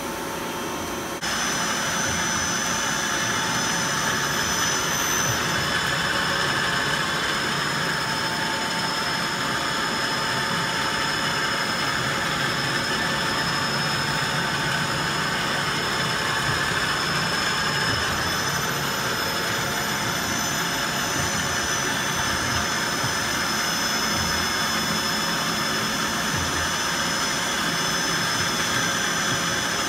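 1996 Nakamura TW-10MM twin-spindle, twin-turret CNC turning center running a machining program with both units cutting at once: a steady high-pitched whine over a hiss, getting louder about a second in.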